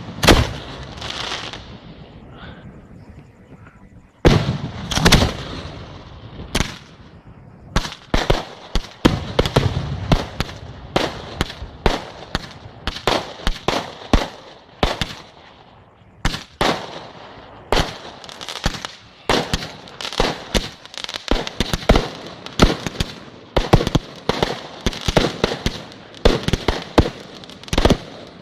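Fireworks display: aerial shells bursting in sharp bangs, a few at first, then a rapid barrage of many reports from about eight seconds in, with deeper booms among them.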